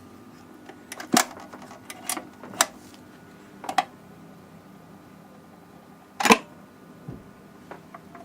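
BSR Monarch autochanger of a PYE Black Box record player going through its automatic cycle: a string of sharp mechanical clicks and clunks as the tonearm is lifted, swung over and set down. The loudest clunk comes about six seconds in, over a faint steady hum.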